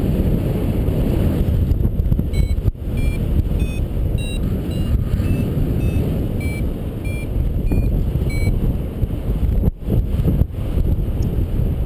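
Wind buffeting the microphone in flight, with a paragliding variometer beeping: short pitched beeps about twice a second from about two seconds in until near the end, the pitch stepping up and down. This is the variometer's climb tone, the sign of the glider rising in lift.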